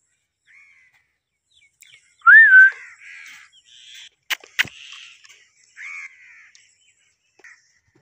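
Blue Indian ringneck parakeet calling: one loud whistled call about two seconds in that rises and then holds its pitch, followed by several softer raspy chattering calls. Two sharp clicks come in the middle.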